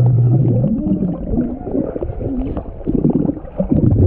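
Muffled, watery pool sound with low, wavering voices. A low held tone rises in pitch about half a second in.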